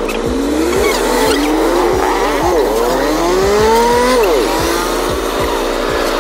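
A three-wheeled tricycle cab's motor pulling the vehicle along, its pitch climbing steadily and then dropping sharply, about twice, as it speeds up through its gears.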